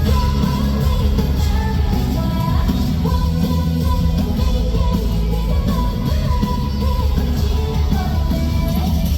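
Live pop-rock band playing a song with a female lead vocal, drums, bass and guitar, heard over a venue PA with a heavy low end.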